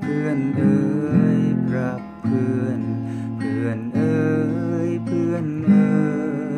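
Acoustic guitar strummed in chords, playing the song's closing outro after the last sung line.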